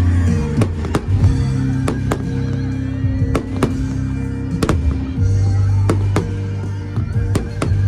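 Fireworks exploding in a dozen or so sharp, irregularly spaced bangs over loud music with sustained low notes.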